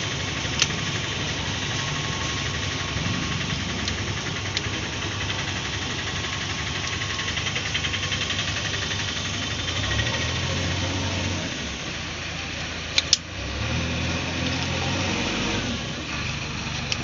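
An engine idling steadily, swelling and easing a little a few times, with a sharp click under a second in and a quick double click about two thirds of the way through.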